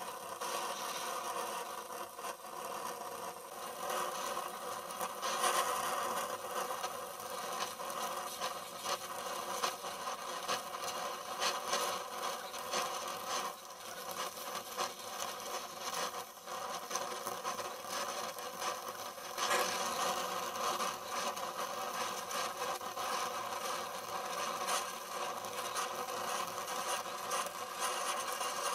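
Flame of a Donmet 132A micro gas-welding torch hissing steadily while welding a steel water pipe, with small irregular crackles.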